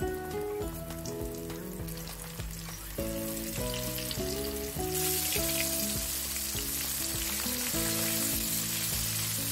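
Flour-coated chicken pieces frying in hot oil in a wok: a sizzle with small crackles that gets much louder about halfway through, over light background music.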